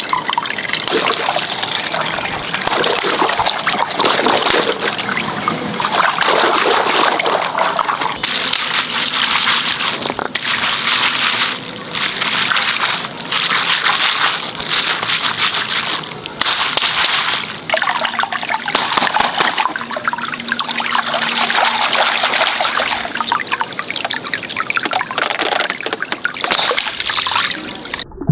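Water running and trickling, with short breaks every few seconds, cutting off abruptly near the end.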